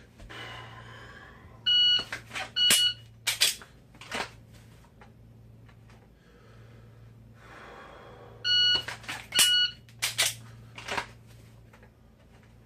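Shot timer in par-time mode beeping twice for each rep, a start beep and a par beep about a second apart (par set to 0.9 s); this happens twice. Between and after the beeps come sharp clicks and knocks from a Glock being drawn from the holster and dry-fired.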